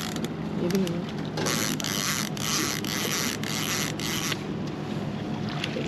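Fishing reel working as a hooked chinook salmon is played: a creaking, clicking mechanical noise that swells into a run of rasping hiss from about one and a half to four seconds in, over the steady hum of the trolling boat's motor.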